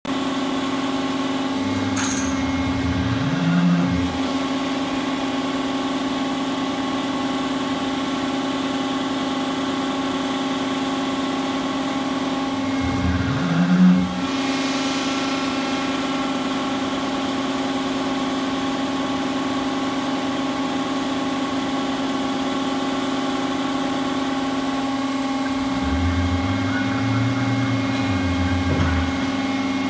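Steady hum of the hydraulic power unit on a winch load-test stand, holding one constant tone. Three times a lower drone swells and its pitch rises and falls as the PD12C hydraulic winch is run under a load of about five tons: briefly about 2 s in and again about 13 s in, then longer near the end.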